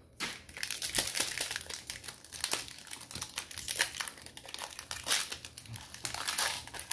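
Foil Pokémon booster pack and its plastic-and-cardboard packaging crinkling and crackling as they are handled and unwrapped, with many quick small crackles.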